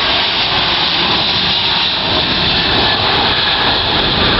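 Airbus A380's four jet engines at takeoff thrust as the airliner lifts off: loud, steady jet noise, growing a little louder near the end.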